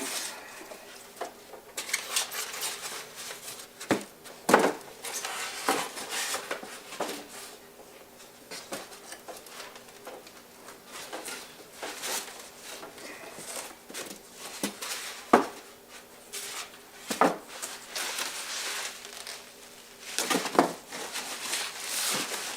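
A diesel air heater being pulled out of its cardboard box and styrofoam packing: irregular rustling, scraping and creaking of packaging, with scattered knocks and clicks.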